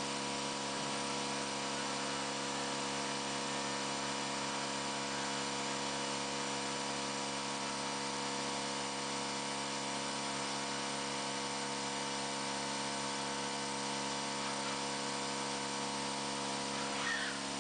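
CNC mill spindle running steadily as a twist drill feeds slowly down into a plywood board: an even, unchanging machine whine.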